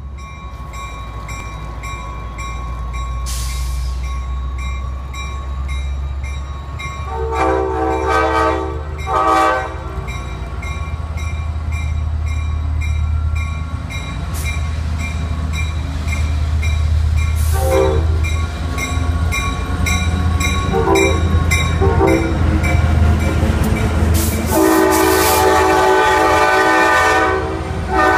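F59PH diesel locomotive's air horn sounding a series of blasts over the steady low rumble of the locomotive. There are two blasts about seven to nine seconds in, a few short toots around the twenty-second mark, and a long blast near the end.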